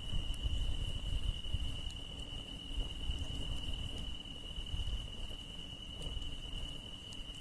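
Insects, crickets among them, singing in a steady unbroken high trill, with a few faint campfire crackles and a low rumble underneath that is stronger in the first few seconds.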